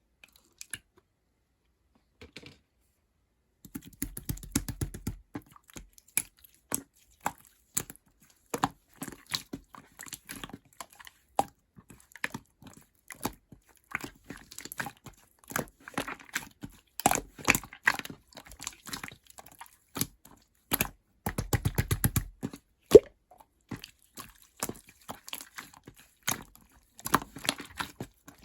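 Marbled slime being squeezed and handled by hand, making a dense run of sticky clicks and small pops that starts about three and a half seconds in.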